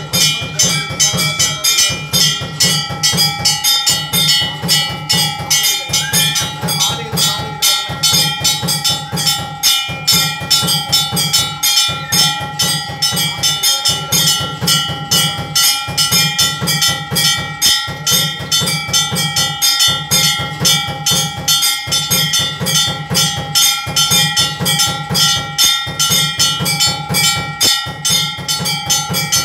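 Loud ceremonial music of fast, continuous drumming with bells ringing over a steady held tone, the getti melam of a Tamil wedding, played as the thali is tied.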